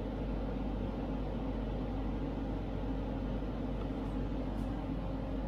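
Steady low hum and hiss of an induction cooktop running under a pot of simmering corn milk.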